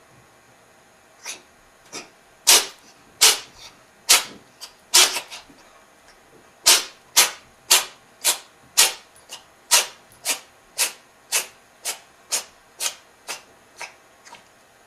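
An unwell cat in a long fit of sneezing and coughing: a string of short, breathy, rasping bursts. After a brief pause they settle to about two a second, then grow weaker toward the end.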